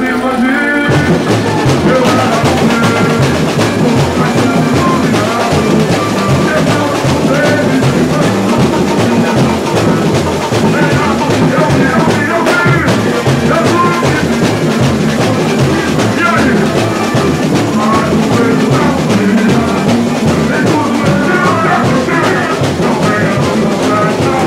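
Live samba-enredo: singers at microphones over guitar, joined about a second in by the samba school's drum section playing a steady, driving beat.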